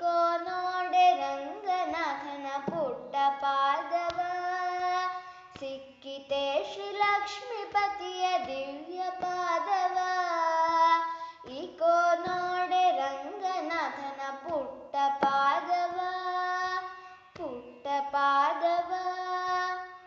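A female voice singing a Kannada devotional song in Carnatic style. Long held notes slide between pitches, in several drawn-out phrases with short breaths between them.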